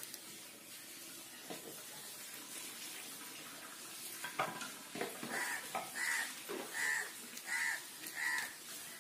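An animal call repeated five times at an even pace, each short note about a third of a second long, following a few soft knocks and rustles.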